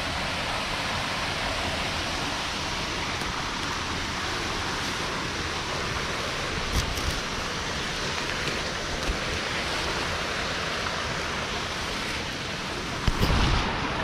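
Steady rush of falling and flowing water from a mountain stream and its waterfall, with a few brief low bumps on the microphone about seven seconds in and again near the end.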